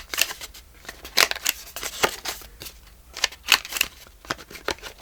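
Crop-A-Dile Corner Chomper punch rounding the corners of paper cards at the 1/4-inch setting: a series of sharp snipping clicks with paper rustling between them.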